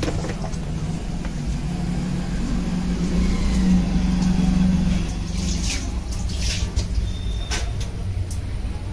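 A low steady rumble that swells a little around the middle, with a few sharp ticks or splashes between about five and eight seconds in.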